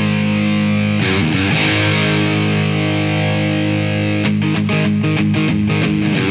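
Instrumental opening of a rock song: distorted electric guitar chords struck and left to ring, with a faster rhythm of short, sharp strokes coming in about four seconds in.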